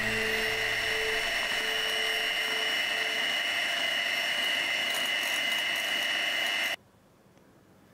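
Electric hand mixer running steadily at speed, its beaters whisking egg whites and sugar into meringue in a glass bowl, with a high, even motor whine. The sound cuts off abruptly about seven seconds in.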